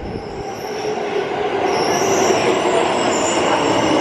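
Tokyo Metro Ginza Line subway train pulling into the station and braking to a stop, a dense steady rolling rumble, with high wheel-and-brake squeals rising in about halfway through.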